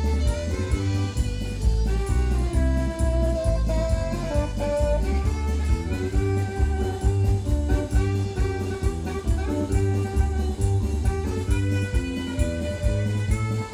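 Live band playing an instrumental passage with no singing: drum kit and bass keeping a steady beat under a saxophone and keyboard melody, heard through the stage PA.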